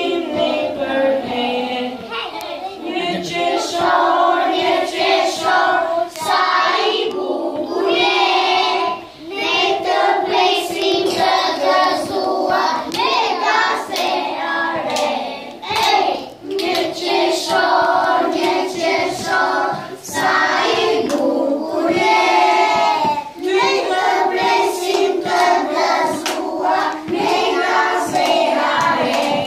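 A group of young children singing a song together in unison, with scattered hand claps along the way.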